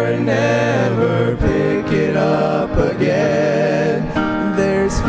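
Gospel song performed as singing over instrumental accompaniment, with wavering held notes.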